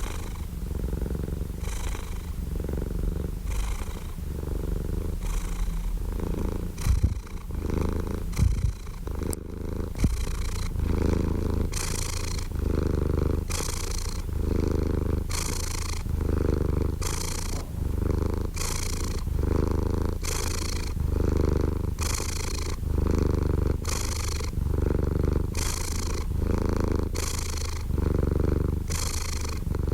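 Domestic cat purring close up, a steady low buzz that swells and eases about once a second with each breath in and out. A few brief bumps sound about a quarter of the way through.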